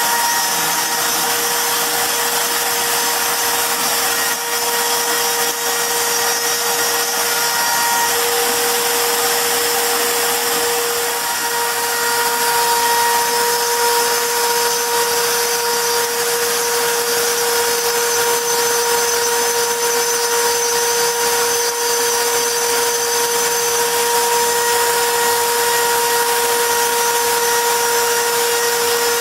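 CNC router spindle running steadily while its cutter engraves wood: a constant whine at one pitch over a dense hiss, wavering briefly about eight and again about eleven seconds in.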